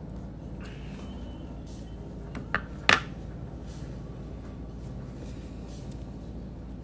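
Steady low hum of background noise, broken by two short sharp clicks close together about two and a half seconds in, the second one louder.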